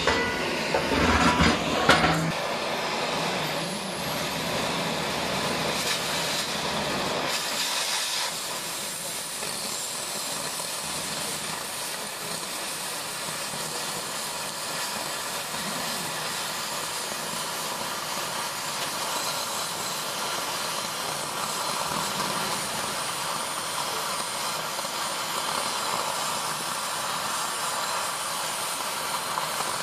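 Oxy-fuel cutting torch hissing steadily as its flame cuts through thick steel bar. A few clanks come in the first two seconds.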